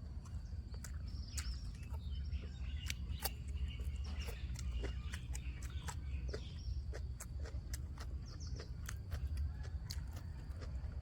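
Outdoor ambience: small birds chirping over a steady low rumble, with many scattered sharp clicks and ticks throughout.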